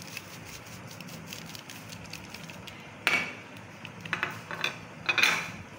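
A spatula scraping and knocking against a steel pot of raw beef and spice powder, in three short bursts in the second half, after a few seconds of quiet.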